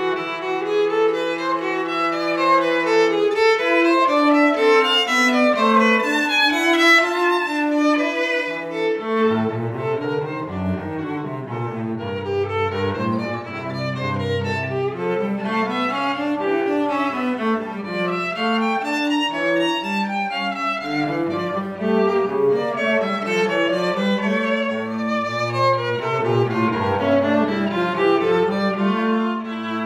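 Instrumental background music played on bowed strings, a violin melody over a lower cello part. The low part drops out for several seconds and comes back about nine seconds in.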